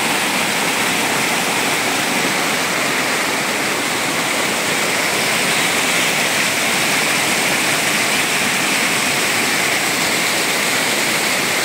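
Muddy, silt-laden floodwater rushing down a steep rocky gully, a steady, loud rush of water: a small hillside channel running full with rainy-season runoff.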